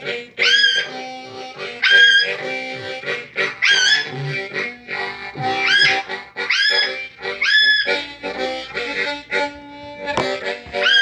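Low-tuned harmonica playing blues chords in a steady rhythm. About every second and a half a high call rises and falls above it, most likely the red-sided eclectus parrot calling along.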